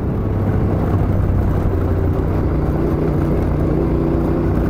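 Adventure motorcycle engine running at a steady cruise, with wind and road noise.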